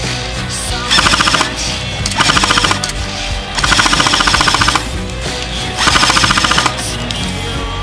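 Homemade airsoft Browning 1919 A4 replica, driven by a G36 electric gearbox, firing four short full-auto bursts of rapid shots, over background rock music.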